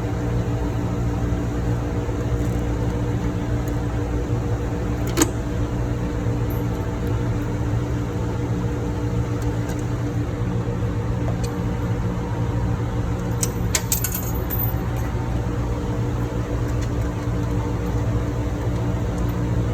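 Steady ship engine-room machinery drone, a strong low hum with several steady tones over it. A sharp metallic click about five seconds in and a short cluster of metallic clinks around fourteen seconds.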